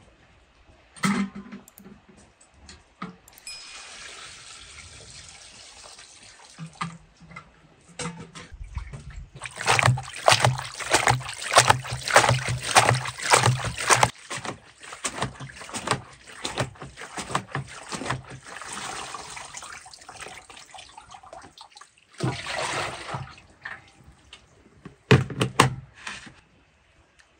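Water splashing and trickling in several bursts, the loudest and longest stretch about ten to fourteen seconds in, with two shorter splashes near the end.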